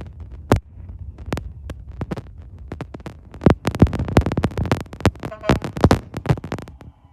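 Garbage truck collecting green waste: a rapid, irregular clatter of knocks and thuds as yard waste and the bin bang into the hopper, heaviest in the middle, over the low rumble of the truck's engine.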